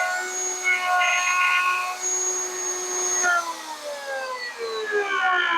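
Router on a router table, spinning a 1/2 inch straight bit, running with a steady high whine. About three seconds in it is switched off and the whine falls steadily in pitch as the motor winds down.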